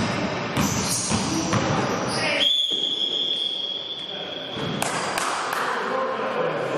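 A referee's whistle blown in one long, steady blast of about two seconds, starting about two and a half seconds in with a quick upward slide into its pitch. Before it, a basketball bounces and thuds on the hall floor among court noise.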